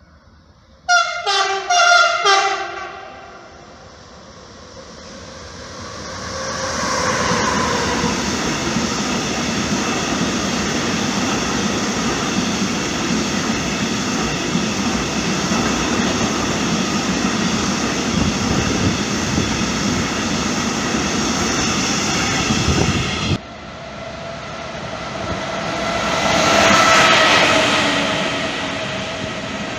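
Siemens Vectron electric locomotive's horn sounding in a quick run of short blasts about a second in, then a freight train of tank wagons passing at speed with a steady rush of wheel and rail noise and a high whine. After a sudden cut, a second train of passenger coaches passes, loudest near the end.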